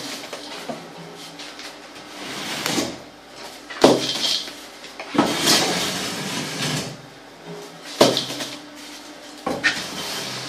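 Metal straightedge scraping across fresh cement render on a wall in repeated strokes, with a few sharp knocks of the tool between strokes.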